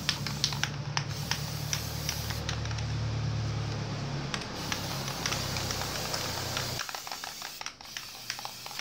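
Aerosol spray-paint can hissing steadily as paint is sprayed onto a PVC pipe. The spray stops about seven seconds in. A low steady hum runs beneath the hiss while it lasts.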